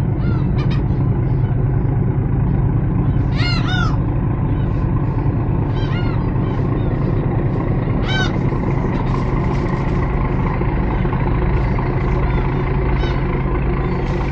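Passenger ferry's engine running with a steady low drone, with gulls calling over it in short arched cries about three and a half, six, eight and thirteen seconds in.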